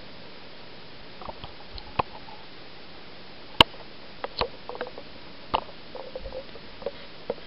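Handling noise: scattered clicks and knocks with faint rustling over a low steady hiss. The sharpest click comes about three and a half seconds in.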